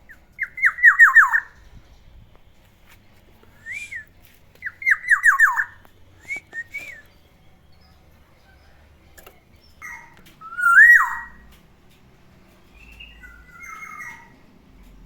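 Black-naped oriole (kepodang) singing: two bursts of five or six quick falling notes, short whistled notes between them, and a longer whistle that rises and then drops sharply about eleven seconds in, followed by softer calls.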